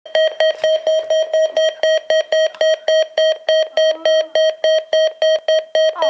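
Midland NOAA weather alert radio sounding its alert beep for a Required Weekly Test. The beeps are short, rapid and steady, about four or five a second, all on one pitch.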